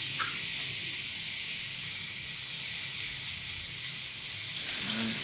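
Raw steaks sizzling steadily as they sear on the hot ribbed plate of an electric contact grill.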